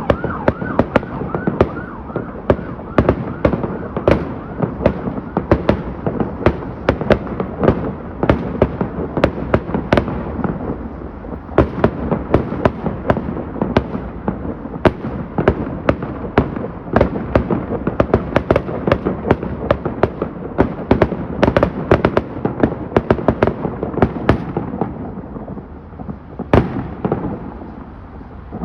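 Fireworks going off in a rapid, continuous barrage of bangs and crackles, several a second. A siren yelps over them at the start and fades out within about two seconds.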